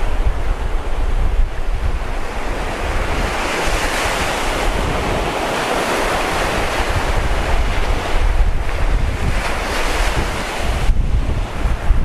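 Surf breaking and washing up a sandy beach. The rush of foam swells about three seconds in, surges again around eight seconds and eases near the end, over a low rumble of wind on the microphone.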